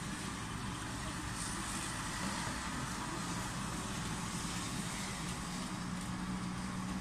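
Steady distant road-traffic noise through an open window. A low steady hum comes in about three seconds in and grows louder.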